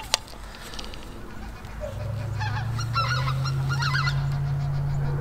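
Geese honking over and over, the calls clustering from about two seconds in. Two sharp clicks come at the very start as an arrow is nocked onto a longbow string.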